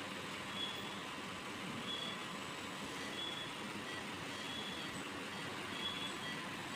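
Hospital ICU equipment: a steady hiss with short high-pitched beeps repeating about every 1.3 seconds, like a patient monitor or ventilator beeping.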